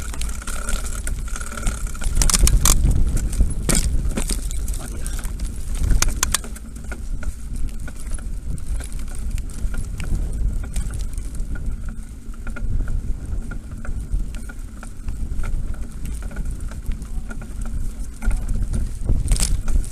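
Mountain bike ridden over a rough dirt track, heard from a camera on the rider: a steady rumble of wind and ground vibration, with frequent sharp clicks and rattles from the bike jolting over bumps, the loudest a little after the start, about six seconds in, and just before the end.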